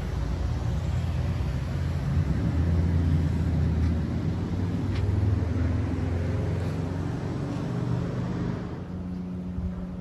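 A motor vehicle driving past on the street: a low engine hum with tyre noise that builds over the first few seconds and fades away near the end.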